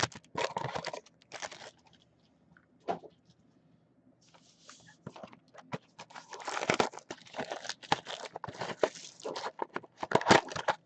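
Trading card pack wrappers being torn open and crinkled by hand, in irregular crackling bursts. It pauses briefly a couple of seconds in, then runs densely again.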